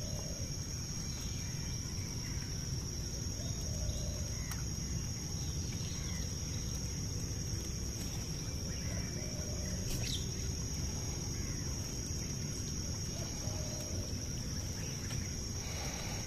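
Steady high-pitched insect chorus with scattered short bird calls and a low steady rumble underneath.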